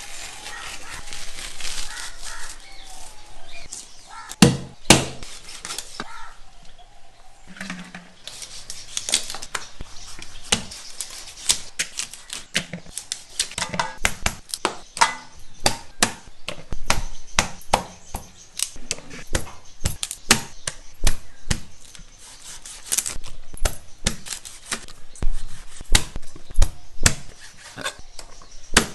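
A knife chopping and scraping fish on a board: many quick, irregular knocks, a few of them louder, such as near the fifth second.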